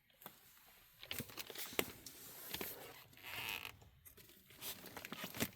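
Handling noise: rustling and crinkling with irregular light clicks and knocks as items are moved about, and a longer rustling sweep about three seconds in.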